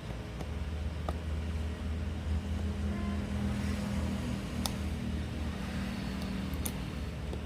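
Steady low hum, with a few small sharp clicks as a cutter works at a phone's broken battery connector on its circuit board.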